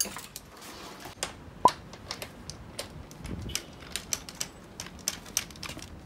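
Irregular light clicks and taps of metal hand tools being handled, with one sharp metallic clink about a second and a half in that rings briefly.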